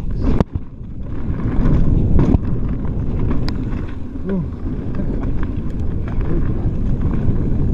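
Wind buffeting the microphone over the rolling noise of a mountain bike's tyres on a dirt trail at speed, with a few sharp knocks as the bike rattles over bumps.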